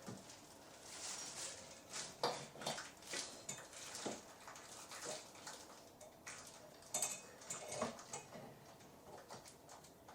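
Faint, irregular clinks and rustles of a light fixture's metal mounting bracket and wires being handled and fitted to an electrical box, with a few sharper clicks about two seconds in and around seven to eight seconds in.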